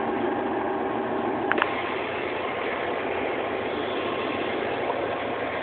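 Pakistan Railways diesel locomotive running close by: a steady engine noise, with a couple of sharp clicks about a second and a half in.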